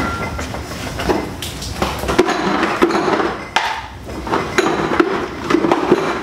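Ice cubes clattering into a plastic container: a dense run of sharp clinks and knocks, busiest in the second half.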